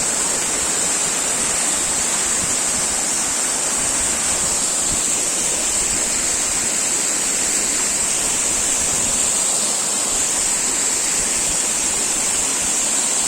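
Waterfall rushing: a steady hiss of falling water with no break.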